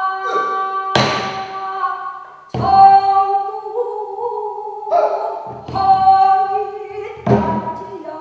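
Pansori singer holding long, wavering sung notes, punctuated by four sharp strokes of the buk barrel drum that accompanies pansori.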